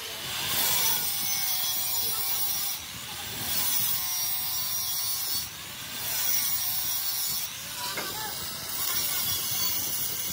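Handheld angle grinder grinding the edge of a steel wheel rim as the rim spins in a lathe, a continuous scraping hiss that swells and eases several times, with a whine that dips and recovers in pitch.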